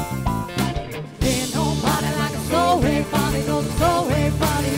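Band music. About a second in it switches to a louder passage with a voice singing.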